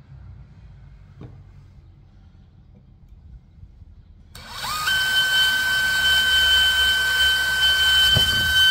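A cordless DeWalt drill spins up about four seconds in and runs at a steady high speed, drilling a hole through aluminum. It gives a loud, steady high-pitched whine after a short rise in pitch.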